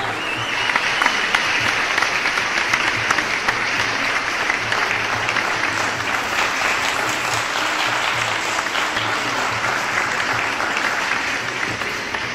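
Audience clapping, with background music and a steady low beat underneath; the applause eases off slightly near the end.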